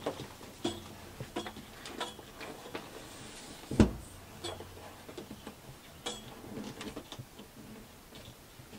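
Caravan TV aerial mast being turned and pushed down into its low position by hand: scattered light clicks and knocks, with one loud knock a little under four seconds in.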